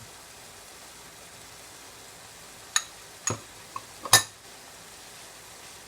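A handful of sharp clinks of kitchenware, seasoning containers and utensils knocking against a cooking pot, about halfway through, the loudest just past the middle, over a steady soft hiss of the pan cooking.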